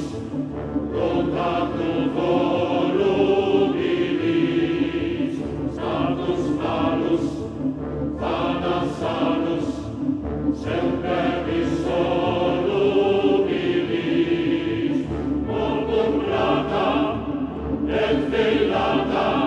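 Choral music: a choir singing long held notes with accompaniment, no words picked out.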